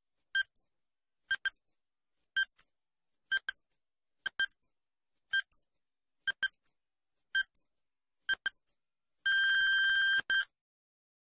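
Quiz countdown-timer sound effect: short high electronic pips, some of them doubled, about once a second, then a steady beep lasting about a second near the end that signals time is up.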